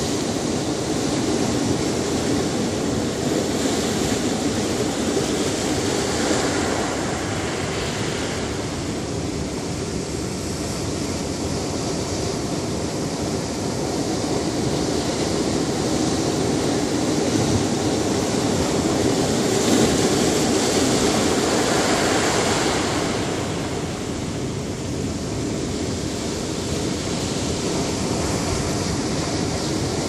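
Ocean surf breaking over a rocky shore: a continuous rush of churning white water that swells louder as waves crash, about six seconds in and again around twenty seconds in.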